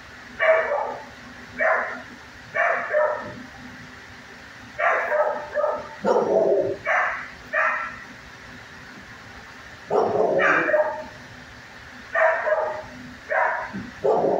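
Dog barking in short, irregular bursts, about a dozen barks in all, some single and some in quick runs of two or three.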